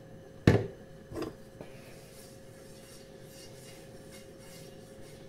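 Two sharp knocks of kitchenware, the first and loudest about half a second in and the second under a second later, then light scraping and rubbing as a non-stick frying pan with olive oil in it is handled on a gas hob. A faint steady hum lies under it.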